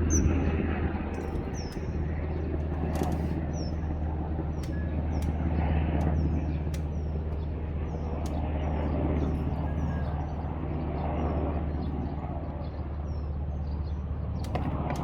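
A small bird chirping over and over, short high chirps about twice a second, over a steady low hum.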